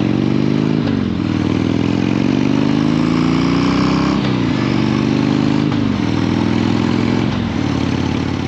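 Harley-Davidson Twin Cam 88 45-degree V-twin running through Screamin' Eagle mufflers under way. The engine note climbs steadily, then drops sharply and climbs again, four times, as when pulling through the gears.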